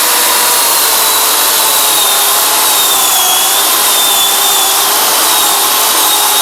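Electric chainsaw running and cutting into wood: a steady high motor whine with the chain rasping, its pitch wavering slightly as the cut loads it.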